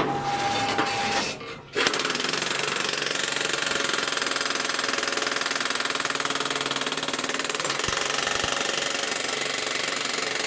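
Jackhammer attachment on a homemade electric power shovel hammering in a steady, very rapid rhythm. It starts about two seconds in, after a short stretch of clatter and a brief lull.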